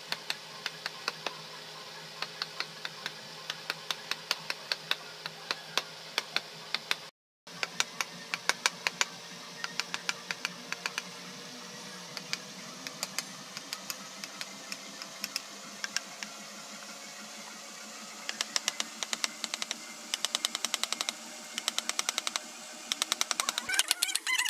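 Wooden mallet tapping a carving chisel into wood in light, quick strokes, a few a second, with denser flurries of taps in the second half. A steady hum runs underneath.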